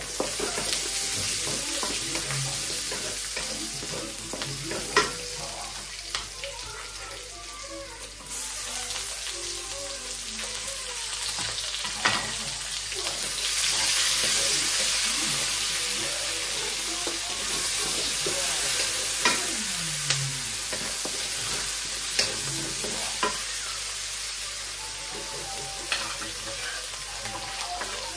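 Onions and other ingredients sizzling in a metal wok as they are stir-fried with a wooden spatula, which now and then clicks and scrapes against the pan. The sizzle grows louder about eight seconds in.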